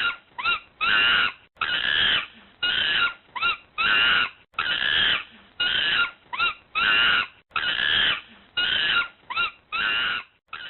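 Monkey calling: a loud, repeating series of calls, mostly long ones with a short upturned yelp among them, the pattern recurring about every three seconds.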